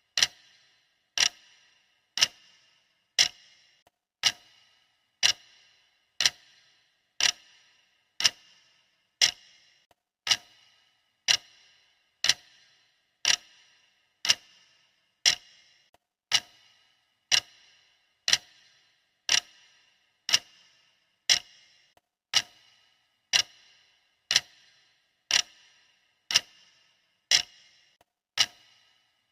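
Clock ticking steadily, about one sharp tick a second, each with a short bright ring: the countdown timer's tick marking off the seconds.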